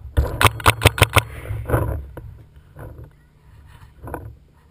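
Paintball marker firing a rapid string of about six shots, roughly five a second, in just over a second of sharp pops.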